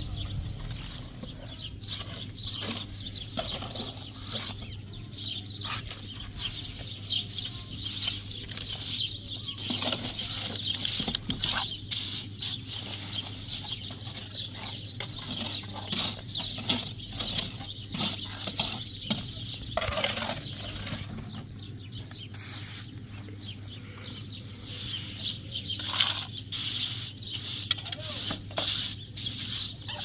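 Steel trowel scraping and tapping wet mortar onto hollow concrete blocks in short, repeated strokes. Birds chirp continuously in the background.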